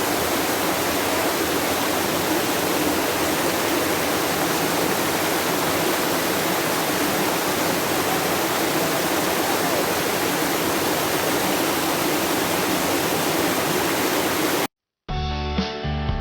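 Waterfall pouring into its pool, a steady, even rush of falling water. Near the end it cuts off abruptly, and after a short silence guitar music starts.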